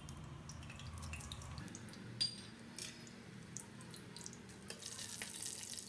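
Cumin seeds and a bay leaf sizzling faintly in hot oil in an aluminium pressure cooker, with scattered light crackles and one sharper tick about two seconds in.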